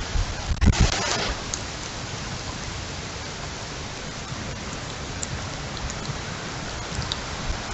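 Heavy rain pouring steadily during a windstorm, with a brief louder surge about a second in.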